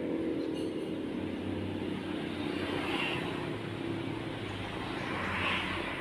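Steady low engine drone with a faint hiss, swelling slightly twice.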